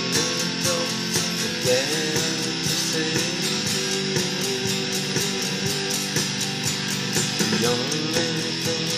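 Cream Stratocaster-style electric guitar strummed in a steady, even rhythm, with held and sliding notes ringing over it.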